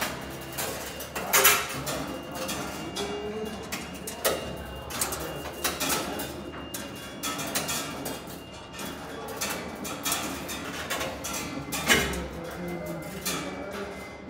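Construction-site clatter: scattered knocks and metal clinks. The loudest knocks come about a second and a half in and again near the end.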